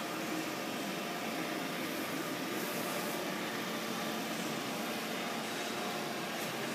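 Milltronics VK3 CNC vertical milling machine running a program: a steady machine hum with a few held tones over a hiss.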